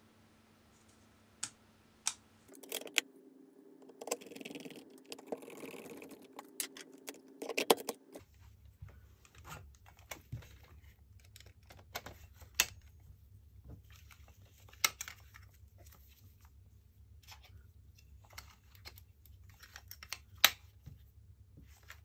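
Irregular clicks and taps of a Nikon D90 camera body being handled: its small plastic and metal parts knock as it is put back together and a lens is fitted. A faint low hum runs underneath from about eight seconds in.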